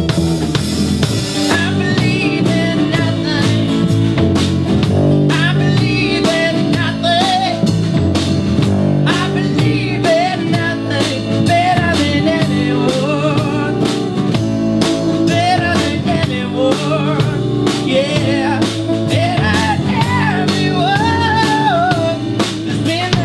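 Band playing a rock song: guitar chords over a steady drum-kit beat, with a singer's melody line on top.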